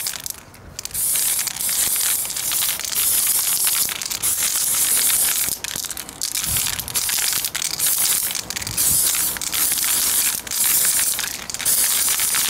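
Aerosol spray-paint can hissing in several long bursts with short breaks as a coat of paint is sprayed on.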